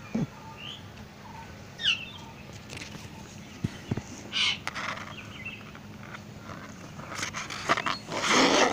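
Garden ambience with a few short bird chirps, one a quick falling note, over a faint steady hum, with scattered clicks and a brief burst of rustling noise near the end.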